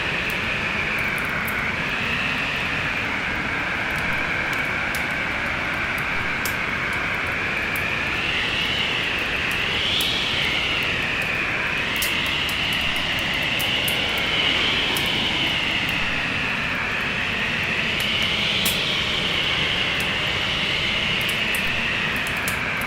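Storm wind blowing steadily, its pitch slowly rising and falling, mixed with the scattered sharp crackles of a wood fire.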